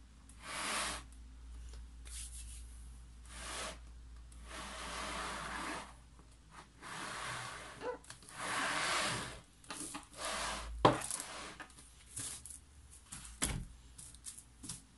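An upturned plastic flip cup is slid and pushed across a wet, paint-covered stretched canvas: a series of rubbing swishes, each up to about a second and a half long. A sharp knock comes about three-quarters of the way through, followed by lighter scattered taps.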